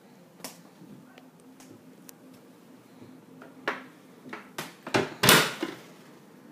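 Several knocks and bumps in a room, the loudest a heavy thump about five seconds in, over a faint steady low hum.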